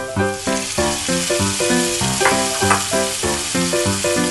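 Diced vegetables sizzling as they fry in a non-stick pan, stirred with a spatula as chopped tomato goes in. Background music with a steady beat plays over the sizzle.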